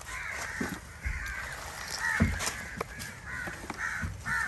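Crows cawing repeatedly, many short calls following one another, with a few low thumps in between.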